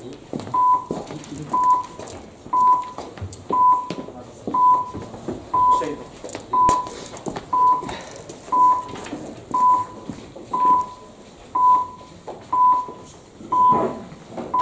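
Electronic voting system's countdown timer beeping: a short high beep once a second, counting down the last seconds of the deputies' registration, over room murmur and shuffling.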